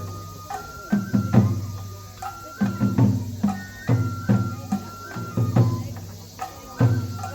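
Japanese festival hayashi music for a lion dance: taiko drums struck in short repeating clusters, with a high bamboo flute playing held notes over them.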